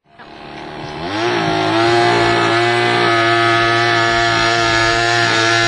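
Two-stroke chainsaw engine driving a homemade radio-controlled speed boat, growing louder and rising in pitch over the first second or so, then running steadily at high revs.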